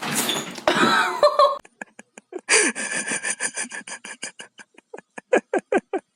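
A person laughing in rapid short bursts, several a second, after a noisy first second and a half.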